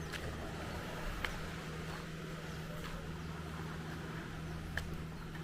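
A steady low mechanical hum, with two short sharp clicks, one about a second in and one near the end.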